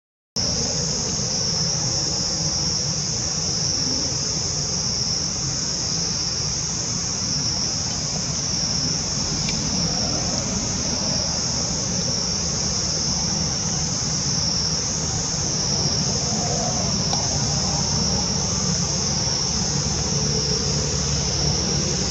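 Loud, steady, high-pitched insect chorus that swells and fades gently every second or two. It cuts out for a moment right at the start.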